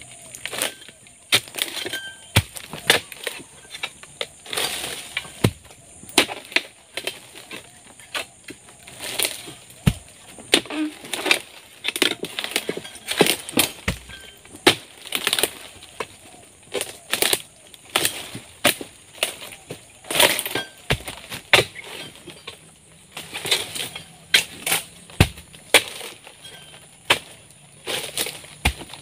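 A long-poled harvesting sickle (egrek) hacking and pulling through oil palm frond stalks and fruit-bunch stems: irregular sharp cracks and cuts, each followed by the rustle of palm fronds, repeating every second or two.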